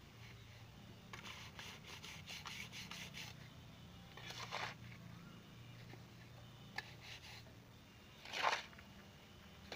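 Hand trowel scraping and working wet cement mortar in short strokes. A run of quick scrapes comes in the first few seconds, a single stroke comes midway, and the loudest scrape comes near the end.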